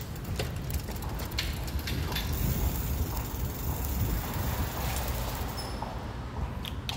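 Bicycle rolling over tiled paving: a steady low rumble with scattered light clicks and rattles.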